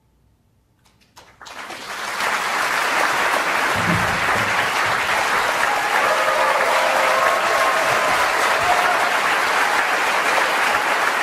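Theatre audience starting to applaud about a second in, after near silence; within a second the clapping grows to steady, loud applause from the whole house.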